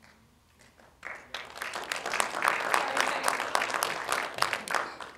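Audience clapping, starting about a second in, swelling, and dying away near the end.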